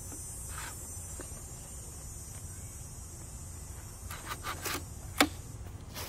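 Scattered mechanical clicks and rattles from a 1964 Hermes Ambassador manual typewriter as the paper and platen are handled. The clicks bunch up toward the end, with one sharp click the loudest. A steady high insect-like trill and a low rumble run underneath.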